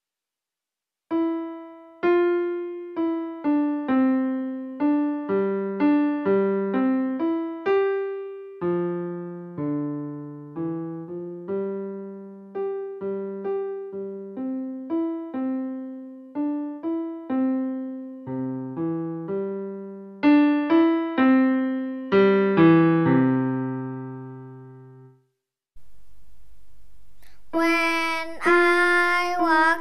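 Casio digital piano played in a simple, steady melody of single struck notes over a bass line, each note dying away. The piece ends on a low held chord that fades out near the end, and after a short break a different passage of music with a low hum under it begins.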